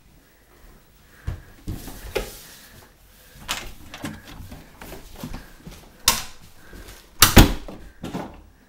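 Rustling and shuffling broken by scattered knocks and thumps as a wooden door is handled, with the loudest couple of sharp bangs about seven seconds in.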